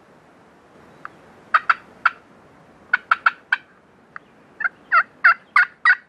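Wild turkey calling: a few short, sharp notes in small groups, then from about halfway a steady run of yelps, about three a second, growing louder.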